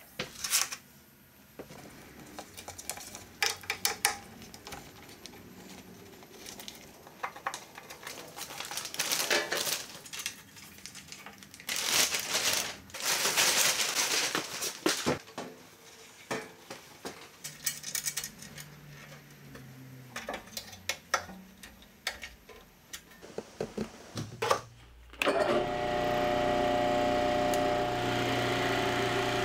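Clunks, clicks and rattles of a JET 18-36 drum sander being handled and assembled, with a longer stretch of rustling and scraping in the middle. About 25 seconds in, the drum sander is switched on and runs with a steady motor hum and whine.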